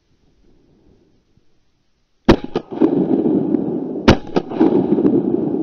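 Two shots from an MP-155 semi-automatic shotgun, about two seconds apart, the first a little past two seconds in, each followed by smaller clicks. A steady rough noise runs on from the first shot.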